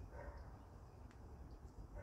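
Low rumble of wind on the microphone, with two short animal calls, one just after the start and one at the end.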